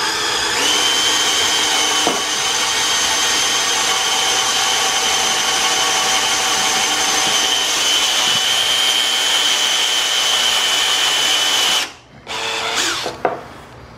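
Cordless drill running steadily, boring a hole into a wooden 2x4 block with a 1 1/4-inch Bosch spade (paddle) bit, a steady high whine over the drilling noise. It stops abruptly near the end, followed by a few short knocks.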